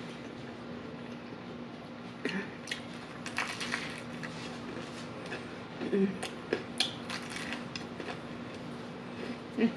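Biting into and chewing crispy fried chicken close to the microphone: a scattered series of crackly crunches and wet mouth sounds, with the loudest crunches a few seconds in and again near the end.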